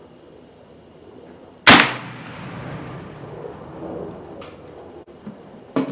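A single shot from a .50-caliber CVA Mountain Rifle muzzleloader firing a 50-grain powder charge, about a second and a half in, with a long echoing tail that dies away over about three seconds. A few short knocks follow near the end.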